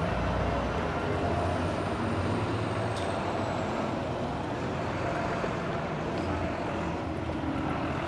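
City street traffic: a steady low engine hum from passing vehicles, a bus among them.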